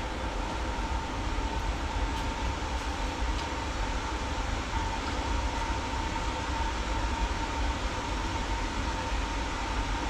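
Steady mechanical whirring noise with a low rumble and a constant high whine running through it.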